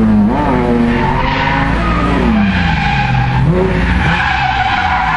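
Car engine revving up and down, its pitch sliding down past the middle and jumping back up a little later, with tyres squealing as a car slides.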